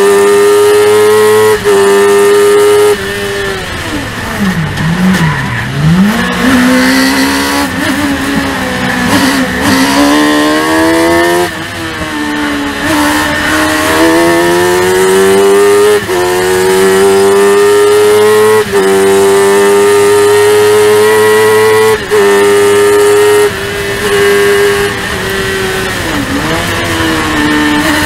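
Onboard sound of a Spire GT3 Sports 1000 race car's 1000cc motorcycle engine running at high revs. A few seconds in the note drops and wavers as the car brakes and changes down for a corner. It then climbs back through several upshifts, each a short cut in the note, and dips briefly once more near the end.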